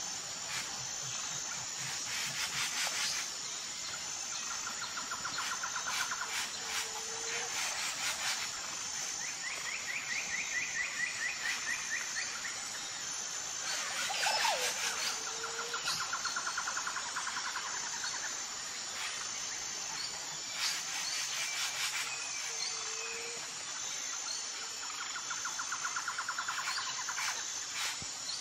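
Outdoor nature ambience: bird chirps and calls over a steady high insect buzz, with rattling trills that recur every few seconds.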